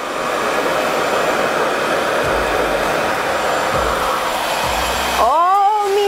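RevAir reverse hair dryer running at speed 4: a steady rush of air from its vacuum-style wand as it draws a section of wet hair in to dry it. Near the end a brief wordless vocal exclamation rises over it.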